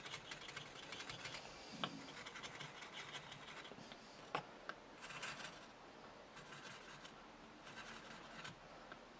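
Wide woodcarving chisel making short texturing cuts on a small wooden carving's base: faint, quick scratching strokes, with a few sharper clicks.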